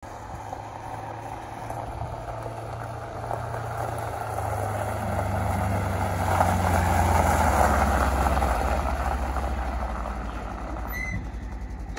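2018 Polaris Ranger XP 1000 side-by-side driving past on gravel: its parallel-twin engine runs steadily and the tyres crunch over the gravel. The sound grows louder as the vehicle approaches, drops in pitch as it passes, and fades as it drives away. A brief high tone near the end.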